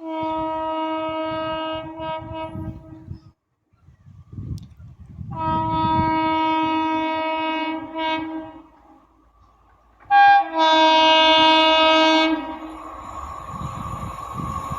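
Indian Railways locomotive horn sounding three long blasts, each about three seconds, with short gaps between. Near the end the horn stops and the rush of the fast train running past rises.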